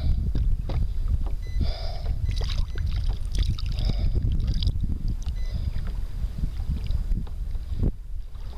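Wind buffeting the microphone over water sloshing against a kayak, with scattered knocks from the hull and gear and a brief high whine about two seconds in.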